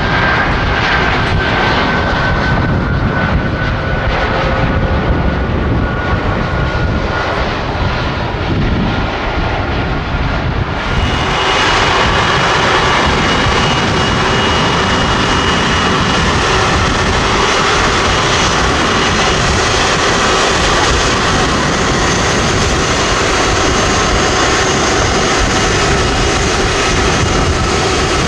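Rolls-Royce Trent 700 jet engines of an Airbus A330-343 on the landing rollout, their whine slowly falling in pitch as the airliner slows. About eleven seconds in, the sound changes to the engines' steady whine at taxi idle.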